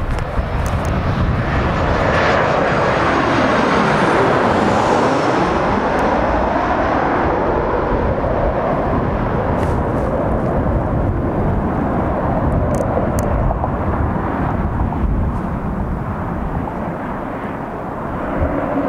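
Boeing P-8 Poseidon's two CFM56 turbofan jet engines on landing approach. Their sound sweeps down and back up in pitch as the jet passes overhead a few seconds in, then settles into a steady rumble that slowly fades as it flies on toward the runway.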